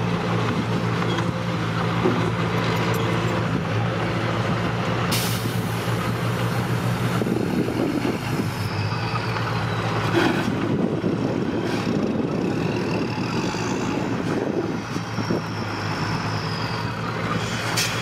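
Engine of a small Hyundai-badged dump truck loaded with soil running steadily as it drives and turns across a dirt site, with a burst of hiss about five seconds in.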